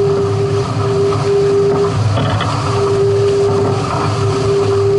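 Wind buffeting the microphone and rushing water as a sailing catamaran moves along, with a steady humming tone that drops out briefly near the middle.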